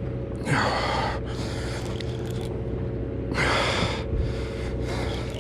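A man breathing hard while fighting a yellowtail on rod and reel: two loud breaths, about half a second and three and a half seconds in, with fainter breaths between, over a steady low hum.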